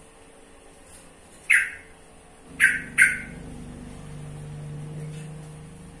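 Caged yellow-vented bulbul giving short, sharp calls: one about one and a half seconds in, then two in quick succession a second later, each a brief falling note.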